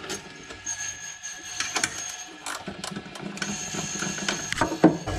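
Hand tool clicking and scraping on metal as the front screws of an Ideal Logic boiler's burner assembly are undone: a string of small irregular clicks, with one sharper click near the end.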